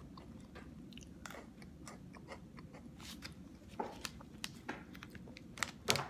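Chewing a strawberry Pocky, a crunchy coated biscuit stick: a run of small crisp crunches close to the mouth. Near the end there are a few louder rustles as the plastic packet is handled.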